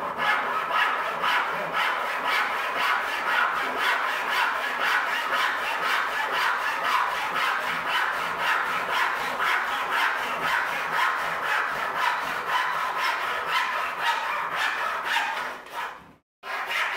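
A hand tool rubbed rapidly back and forth, about four to five rasping strokes a second. It stops briefly about a second before the end, then starts again.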